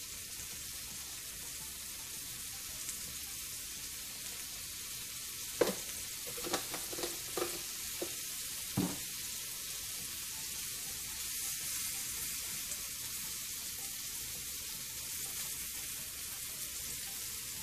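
Scallops searing in butter on an electric griddle, a steady sizzle. A few short taps sound around the middle.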